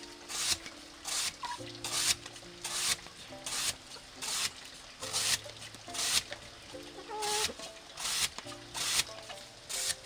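A blade chopping through a soft, wet banana trunk in steady repeated strokes, about one and a half a second.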